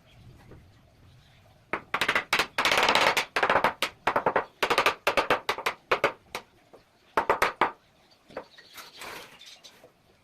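Hammering on wood: a quick, irregular run of sharp knocks, many in rapid succession, starting about two seconds in and stopping near eight seconds, with a fainter scraping stretch after it.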